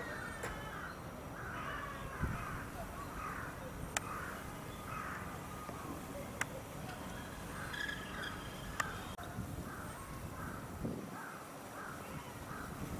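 Birds calling over and over, short harsh calls about two a second, with three sharp clicks scattered through.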